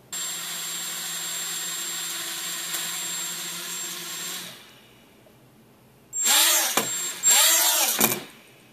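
Hubsan X4 107C mini quadcopter's four small motors and propellers whirring with a thin high whine for about four and a half seconds, then stopping. Two louder, shorter bursts of about a second each follow near the end.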